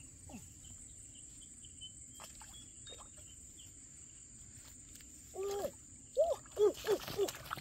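Steady high-pitched insect buzz over outdoor background noise. About five seconds in, a run of short rising-and-falling calls starts, repeating several times and louder than the buzz.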